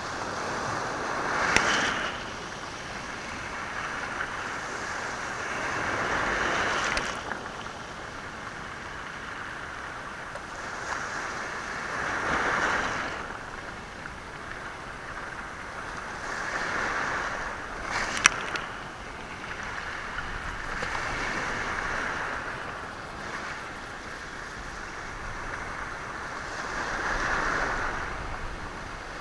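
Sea waves washing in on a stony, rocky shore, surging about every five seconds. Twice, once a couple of seconds in and again just past the middle, there is a sharp clack of stones knocked together by the water.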